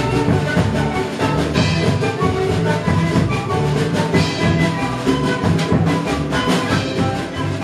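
Instrumental music with drums and percussion keeping a steady beat under held melodic notes.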